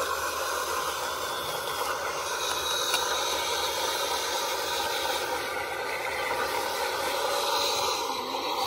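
1/14-scale full-metal hydraulic RC model of a CAT 330F excavator working: the steady whine of its hydraulic pump, with metallic rattling and scraping as it digs hard soil.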